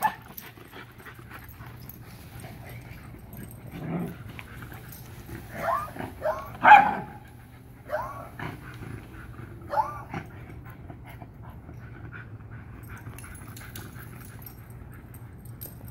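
Dogs at play giving short barks and yips, a scattered handful between about four and ten seconds in, the loudest near seven seconds.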